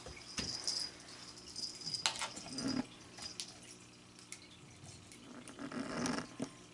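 A cat batting a weighted-base toy with a wire-mounted lure across a tile floor: a few sharp clicks and knocks of the toy, with scuffling of paws and fur in between.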